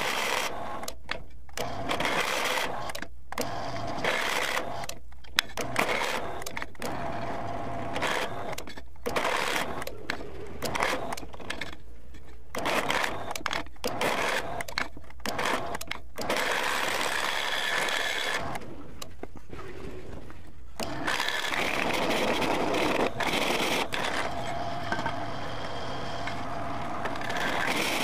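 Millrite drill press running as its twist bit cuts into a rectangular steel tube, a steady motor and spindle sound with the cutting noise on top. The sound breaks off briefly many times in the first two-thirds, then runs unbroken.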